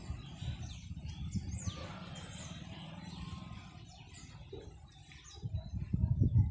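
Small birds chirping now and then over a low rumble of wind on the phone's microphone, the rumble swelling louder near the end.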